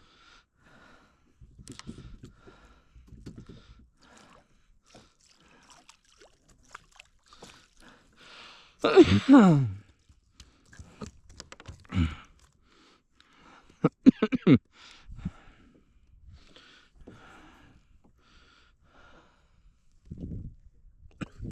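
A man coughing hard in three bouts, about nine, twelve and fourteen seconds in, the first a long chesty cough falling in pitch; he is in the middle of an asthma attack.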